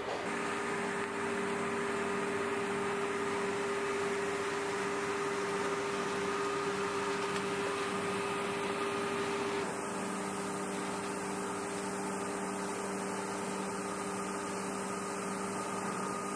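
A steady hum of several fixed tones over a hiss, changing slightly about ten seconds in.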